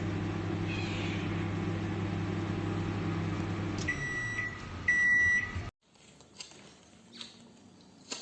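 Samsung MS23K3513AK 23-litre solo microwave oven running with a steady hum that stops about four seconds in. Two high beeps follow as the cycle ends, the second longer and louder. The sound then drops abruptly to a quiet background with a few soft clicks.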